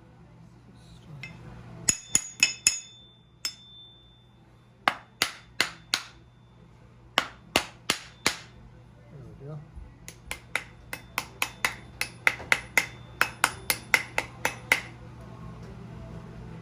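Hammer blows on metal, each with a short metallic ring, coming in bursts: about four quick strikes, a single one, two sets of four, then a longer run of about twenty faster, lighter taps.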